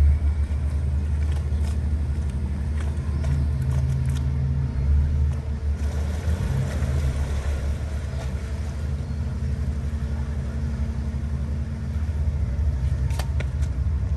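Large motor yacht's diesel engines running in a steady low rumble while it manoeuvres to dock, with a few faint clicks near the end.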